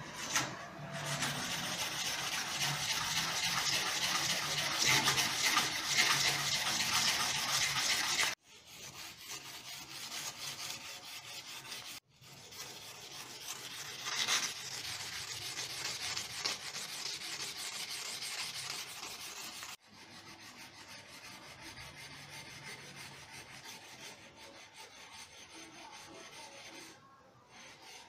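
A strip of 120-grit sandpaper rubbed rapidly back and forth around a new washing-machine drive shaft, shoeshine style, to take the shaft down until it fits. The scraping is loudest at first, breaks off abruptly a few times and comes back quieter.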